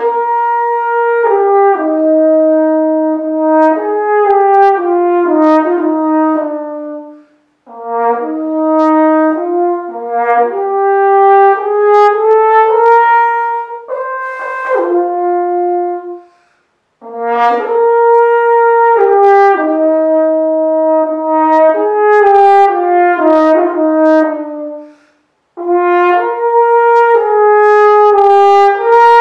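Unaccompanied French horn playing a melody in long phrases of stepping notes, with three short breaks for breath between them.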